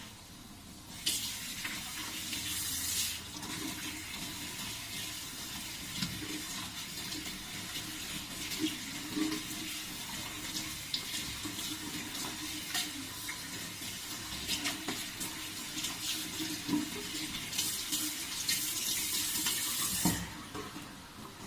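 Water running and splashing as hair is washed and rinsed, with a stronger pour about a second in and again near the end, and scattered splashes and drips between.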